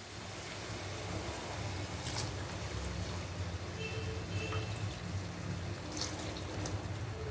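About half a glass of water poured in a steady stream into a pan of fried onion-tomato masala, at the stage when the oil has separated and water is added to cook out the raw masala smell.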